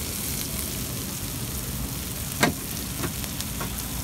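Chopped onions sizzling in oil on a flat griddle, a steady frying hiss. A sharp knock about two and a half seconds in, with a couple of lighter knocks after it, as the onions are worked on the griddle.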